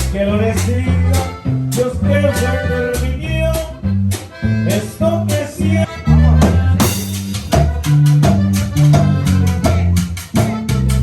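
Loud party music: a Latin band with an accordion lead over bass and drums.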